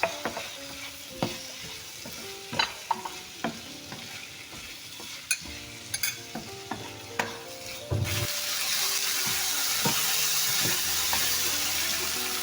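A napa cabbage and tofu stir-fry being stirred in a frying pan, with the utensil knocking and scraping against the pan. About eight seconds in, a loud, steady sizzle starts suddenly, as if something has been added to the hot pan.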